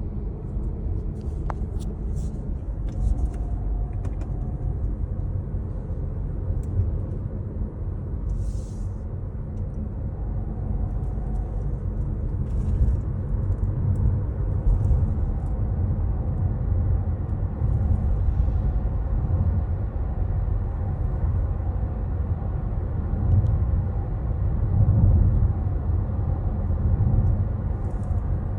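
Honda ZR-V on the move: a steady low rumble of running noise, with brief high-pitched sounds at irregular intervals every few seconds. These are the unidentified abnormal noise that the owner is asking about.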